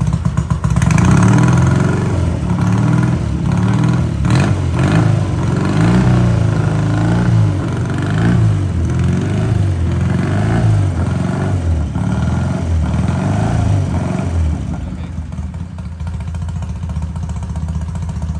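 Vintage British twin-cylinder motorcycle engine running on its first start after repair, revved up and down over and over, then settling to a steady idle near the end.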